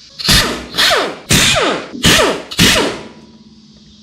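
Five hard blows, about half a second apart, striking metal on the engine being taken apart; each rings briefly and dies away. Typical of hammering a stuck part loose during an engine teardown.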